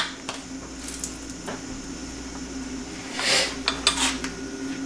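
Scattered metallic clinks and knocks as a rusty cast-iron pipe vise is handled and carried, with a brief rushing sound about three seconds in.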